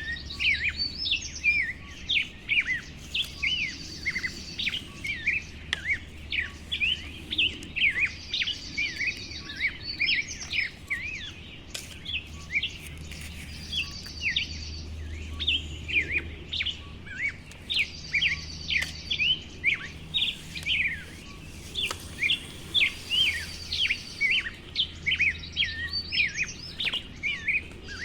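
Birds chirping and twittering in quick, overlapping calls, with a short high trill every few seconds.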